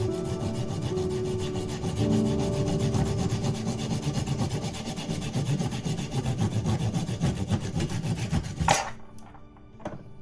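A saw cutting through wood in a fast, even rasping scrape. It stops about nine seconds in with one sharp, loud crack, leaving only a few faint clicks.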